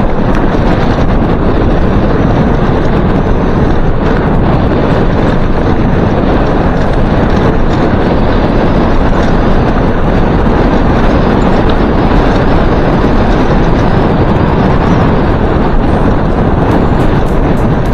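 Loud, steady wind buffeting on the microphone mixed with tyre rumble on loose gravel, from a mountain bike descending a dirt track at over 40 km/h.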